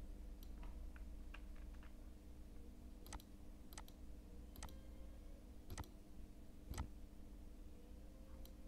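Faint computer mouse clicks, about six single clicks roughly a second apart, mostly in the second half, over a low steady hum.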